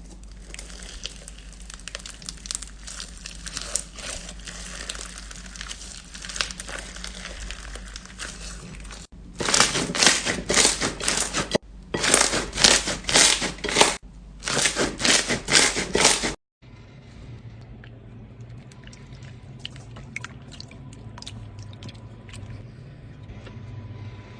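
Slime being squeezed and kneaded by hand, crackling and popping. In the middle come three loud runs of rapid crackling; near the end it is quieter, with scattered clicks.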